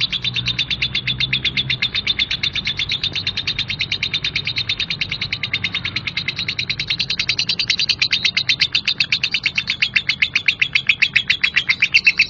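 Lovebird's 'ngekek' song: one long unbroken chattering trill of rapid, harsh notes at about eight a second, growing louder in the second half.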